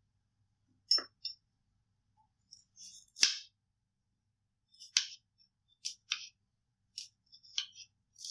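Kitchen knife cutting small onions into long slices on a bamboo cutting board: about nine separate sharp knocks of the blade on the board, irregularly spaced, the loudest about three seconds in.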